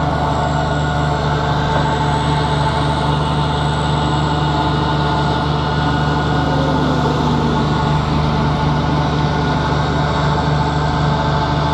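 Landini 19500 tractor's diesel engine running at constant speed, driving an Omas California 40 m³ feed-mixer wagon: a steady, unchanging low drone.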